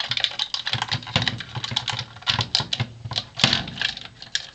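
Plastic parts of a Hasbro Clone Wars AAT toy tank clicking and rattling in quick, irregular taps as it is handled.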